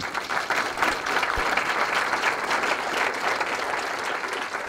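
Audience applauding, many people clapping at once, starting together and holding steady.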